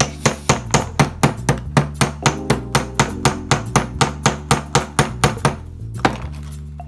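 Wooden toy mallet tapping a digging tool into the plaster block of a dinosaur excavation kit, in a quick even rhythm of about four taps a second for five seconds or so, then one last tap about a second later.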